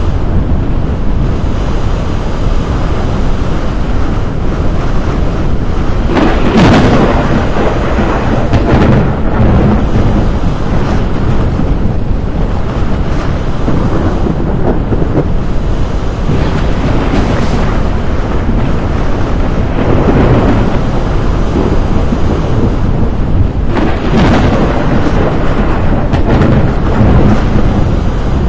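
Thunderstorm: a loud, continuous rumble of thunder with about five louder swells, and some rain.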